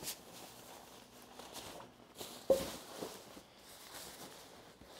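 Thin waterproof nylon backpack rain cover rustling as it is handled and stretched over a backpack, with a few small clicks and one sharp knock about two and a half seconds in.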